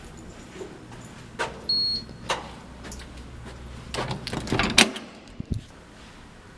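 Clicks and knocks of a door being opened and handled, the loudest about five seconds in, followed by a low thump. A short high electronic beep comes about two seconds in, and a low steady hum stops suddenly near the loudest knock.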